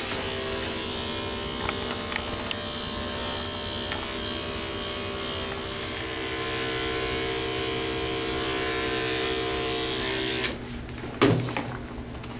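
Electric dog grooming clippers running with a steady hum and a few light clicks. The motor switches off about ten and a half seconds in, and a brief louder sound follows shortly after.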